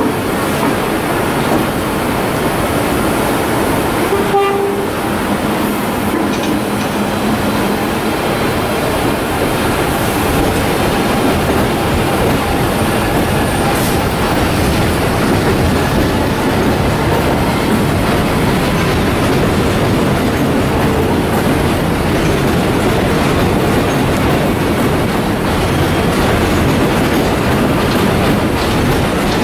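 A train passing at close range: a steady rumble with the clatter of wheels over the rail joints.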